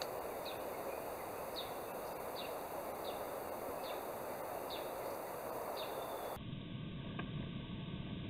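A bird repeating a short, high, falling call note about once every second over a steady outdoor background hiss; about six seconds in the calls stop and the background changes abruptly to a duller, lower noise.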